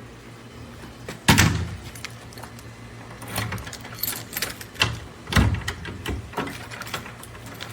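Door lock hardware (handle and deadbolt set) being handled and worked: a run of irregular clicks and knocks, the loudest about a second in and again past the middle.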